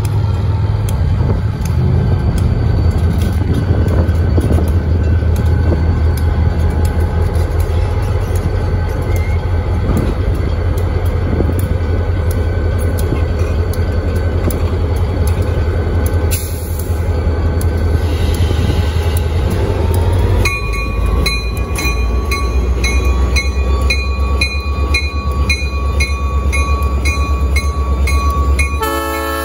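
Diesel-electric freight locomotives, led by an EMD SD40-2M, running and rolling slowly past close by with a loud, steady deep rumble. About two-thirds of the way through, a bell starts ringing in a steady rhythm over the engine sound.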